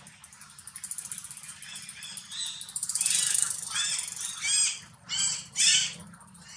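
Newborn macaque giving a run of short, high-pitched squeaks, about half a dozen, each rising and then falling in pitch. They start about three seconds in and are loudest near the end.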